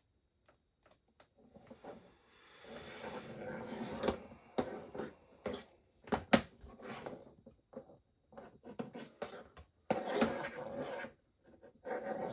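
Handling noise at a workbench: scattered clicks, knocks and rustling as tools and parts are picked up and moved, with one sharper click about six seconds in.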